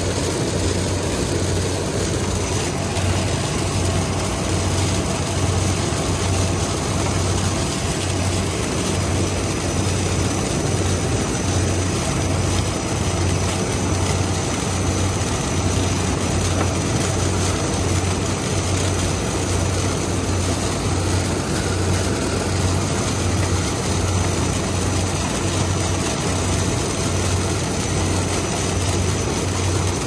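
Kubota DC-70 Plus combine harvester's diesel engine running steadily at constant speed, with the low, even drone of the machine's drives and no change in pace.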